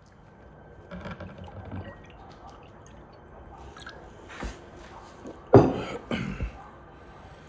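Fruit compote poured from a glass jug into a drinking glass, with a light liquid trickle. About five and a half seconds in come a few short, loud mouth and voice sounds, the loudest part.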